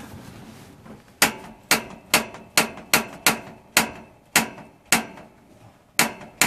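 Piezo igniter of a caravan gas fire clicking sharply about eleven times, roughly twice a second with a brief gap near the end, as the button is pressed repeatedly to light the gas; no flame has yet been seen.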